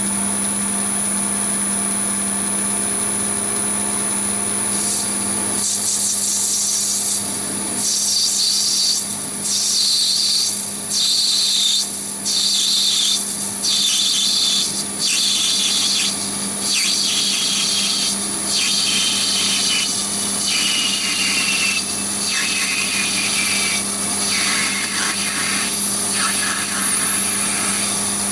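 Chinese mini lathe running with a steady motor hum and a high whine, and from about five seconds in a parting-off tool cutting into the spinning brass stock. The cutting hiss breaks off in short pauses many times as the tool is fed in and eased back. In the second half a thin whistle falls slowly in pitch as the cut deepens.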